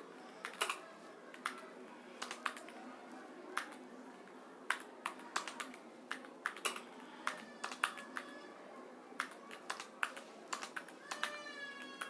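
Typing on a computer keyboard: irregular keystroke clicks, sometimes single and sometimes in quick runs of two or three, with short pauses between.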